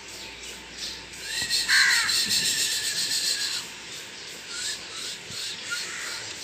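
A hand rubbing a puppy's belly fur with a soft rasp, and a high, drawn-out animal call lasting about two seconds from about a second and a half in.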